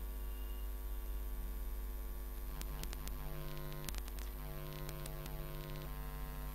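Steady electrical mains hum on the recording, with a few faint clicks about three to four seconds in.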